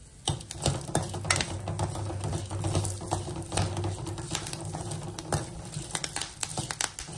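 A spatula stirring and scraping spices, dals and freshly added curry leaves as they are sautéed in a pan for a masala. There are frequent irregular clicks and crackles with light sizzling, over a low steady hum.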